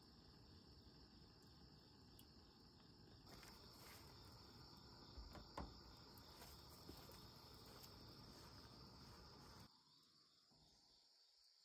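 Faint, steady chirring of crickets, a continuous high trill. A low background hiss and rumble drops away abruptly near the end, and there is a small click about halfway through.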